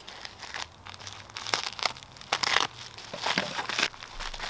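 Thin plastic mailer bag crinkling and rustling in irregular bursts as it is opened by hand and the wrapped contents are lifted out, loudest about halfway through.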